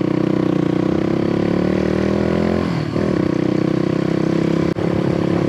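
Motorcycle engine running under way, its pitch rising slowly for nearly three seconds, then dropping at a gear change and holding steady. A short click about a second before the end.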